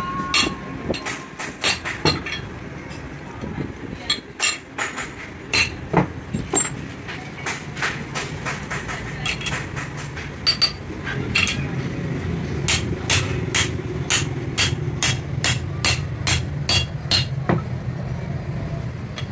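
Metal parts clinking and knocking as a bearing and pulley are fitted onto a shaft, then a regular series of hammer blows, about two to three a second, driving the bearing down the shaft through a steel pipe used as a drift. A low steady hum comes in about eleven seconds in.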